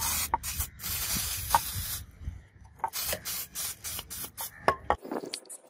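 Liquid sprayed onto a taped knife blade: a hiss of about two seconds, then a quick run of short spray bursts.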